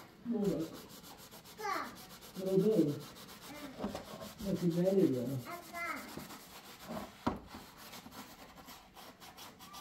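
Hand-scrubbing of a plastic colander over a basin of soapy water: a stream of quick rubbing strokes. A child's voice chimes in several times, mostly in the first half.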